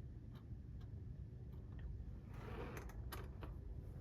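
Light clicks and taps of small metal clock parts being handled as the back plate goes onto a cuckoo clock movement, with a brief rustle and a few sharper clicks about two and a half seconds in.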